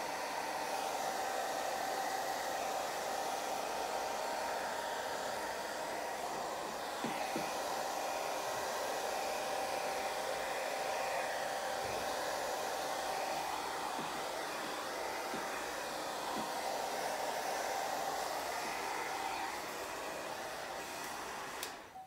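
Handheld hair dryer running steadily on its heat setting: a continuous rushing blow with a steady whine, cutting off near the end.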